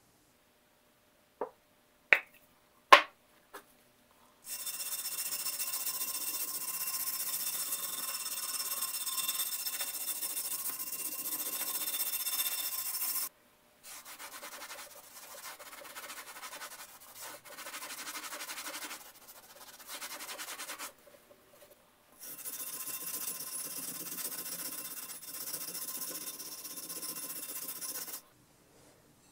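A few sharp clicks, then a stiff hand brush scrubbing the oiled wrought-iron froe blade to loosen surface rust, a steady scratchy rasping. Partway through it gives way to quieter, broken rubbing with a cloth rag, and the brushing starts again, stopping just before the end.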